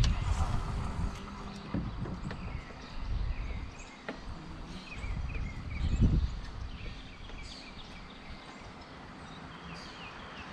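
Birds chirping repeatedly over a low outdoor rumble, with a louder low thump about six seconds in.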